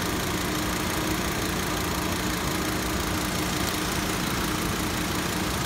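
A motor running steadily, an even mechanical hum that does not change.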